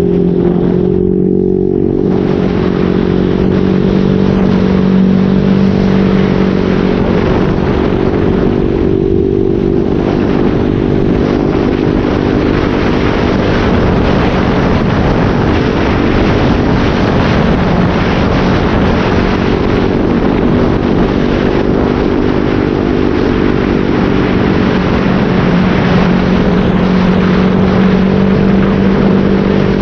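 Motorcycle with an SC-Project aftermarket exhaust and a modified elbow, running steadily while being ridden. Its even exhaust note is partly covered by a rush of noise through the middle and comes back clearer near the end.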